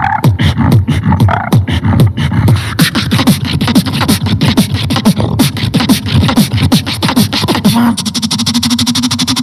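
Solo beatboxing into a handheld microphone: a fast, driving pattern of deep bass kicks and sharp snare and hi-hat clicks. Near the end a low hum is held under a very rapid run of clicks.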